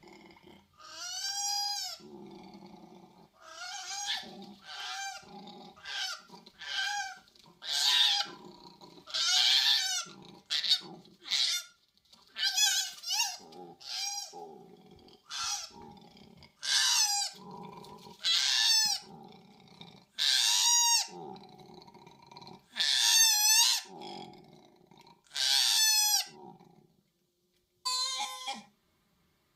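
Koalas calling during a chase: a long run of high, wavering screams, one every one to two seconds, with low, rough grunting between them.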